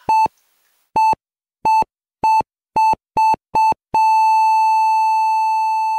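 Heart monitor sound effect: a single-pitched beep repeating seven times, coming quicker and quicker, then giving way about four seconds in to one unbroken steady tone, the flatline that signals the heart has stopped.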